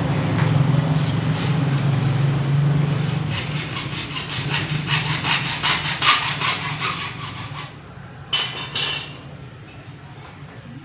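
A hand saw cutting with quick, even back-and-forth strokes, which stop about three quarters of the way through, followed by two short scrapes.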